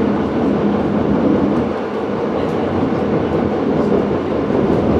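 Berlin U-Bahn train running through a tunnel, heard from inside the passenger car: a steady rumble of wheels on rails with faint clicks.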